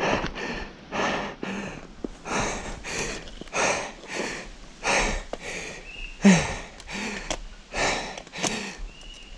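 A mountain-bike rider breathing hard: quick, regular, loud breaths in and out right at the microphone, the rider out of breath.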